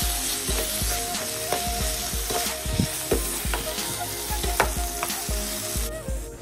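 Raw chicken pieces sizzling in hot oil with dried chillies and garlic in a non-stick pan, stirred with chopsticks that click and scrape against the pan. The sizzle eases near the end.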